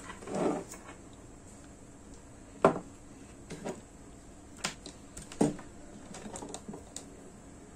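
Small plastic parts, plugs and cables of a bicycle light kit handled on a wooden tabletop: a soft rustle near the start, then irregular sharp clicks and knocks as pieces are picked up and set down, the loudest about a third of the way in.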